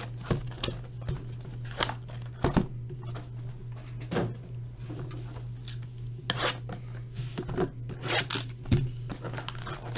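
Cardboard hobby boxes of trading-card packs being opened and handled: scattered short rips, scrapes and taps of cardboard and foil packs, over a steady low hum.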